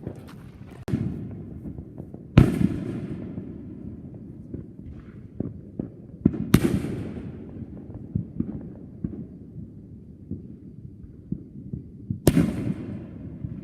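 Fireworks going off: three loud bangs, each with a trailing echo, about two and a half, six and a half and twelve seconds in, the first the loudest, among scattered smaller pops and crackles.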